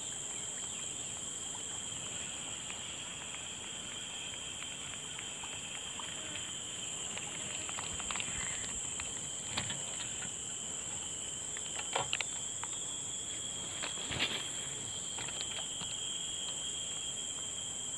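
Steady high-pitched insect chorus, with a few short clicks and knocks in the second half.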